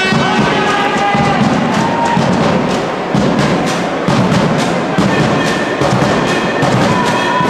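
Supporters in the stands beating a drum in a steady rhythm while a crowd chants along.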